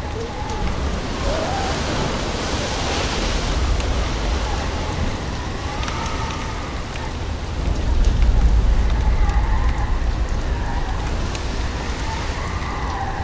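Film sound design of a torrential downpour: dense rain noise under a deep rumble that swells about eight seconds in, with wavering high tones drifting over it.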